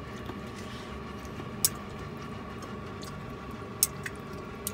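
A few sharp clicks of chopsticks against a ceramic bowl, two of them close together near the end, over a steady faint hum.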